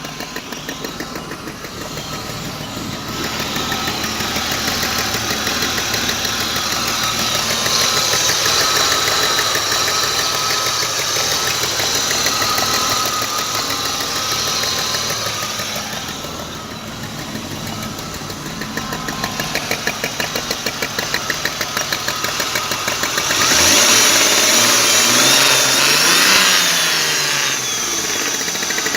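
BMW E34 520i straight-six engine running with a fast, even knock, rising in revs several times and rising and falling most clearly a little past two-thirds of the way through. The owner does not know what is causing the knock.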